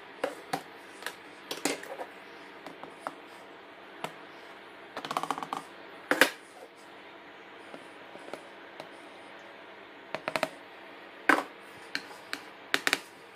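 Irregular clicks and knocks of a metal fork against a plastic food tub while noodles are mixed, some in quick clusters, over a steady low hum.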